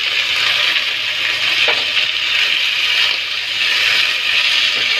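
Chopped tomatoes frying in hot oil in a kadai, a steady loud sizzle, stirred now and then with a slotted spatula.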